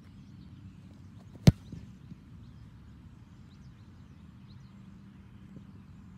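A single sharp thud of a foot punting an American football, about a second and a half in.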